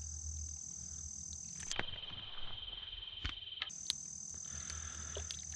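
Insects trilling steadily in a high, continuous tone; about two seconds in it cuts off abruptly and a lower, pulsing trill takes over for about two seconds before the high trill returns. A few sharp clicks fall at the changeovers.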